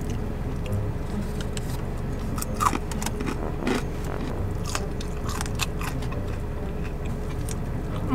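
Close-up chewing of crispy fried spicy chicken wings, with scattered crisp crunches, over a steady low hum.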